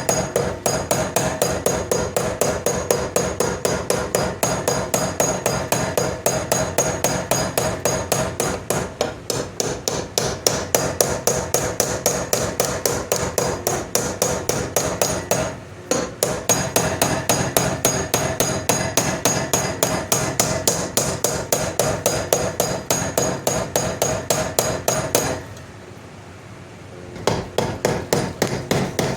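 A small hammer tapping rapidly and steadily, metal ringing with each blow, as the knife's handle pins are peened over. The tapping breaks off briefly about halfway and pauses for about two seconds near the end.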